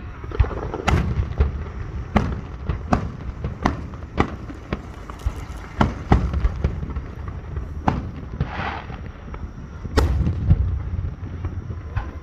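Fireworks bursting in a steady barrage: sharp bangs about one a second, irregularly spaced, over a continuous low rumble, with a short hissing crackle about two-thirds of the way through.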